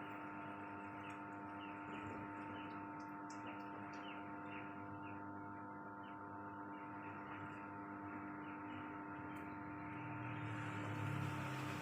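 Steady electrical hum made of several constant tones, with a faint hiss underneath that grows a little near the end.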